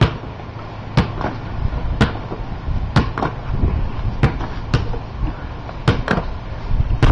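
Basketball bouncing on a concrete driveway as it is dribbled between the legs: about a dozen sharp bounces, unevenly spaced.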